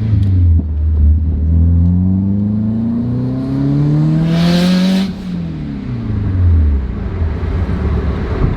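Car engine pulling under acceleration, its pitch rising steadily for a few seconds. About four and a half seconds in a short loud hiss comes as the throttle closes, then the revs fall away and the engine settles to steady running.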